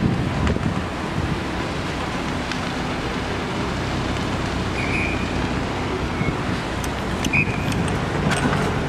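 Steady road and engine rumble of a car driving along a street, with wind buffeting a microphone held out of the car window. Two short high chirps about five and seven and a half seconds in.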